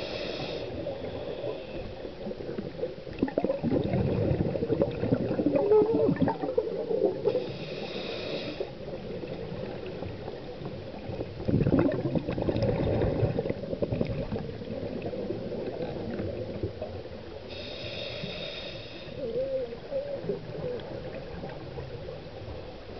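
Scuba regulator breathing recorded underwater. A hissing inhale comes at the start, again about 8 s in and about 18 s in, and each is followed by a few seconds of bubbling as the exhaled air escapes.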